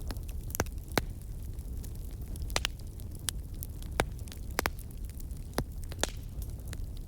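Wood campfire burning: sharp crackles and pops of the burning wood, about ten in all, the loudest about a second in and at four seconds, over a low steady rumble.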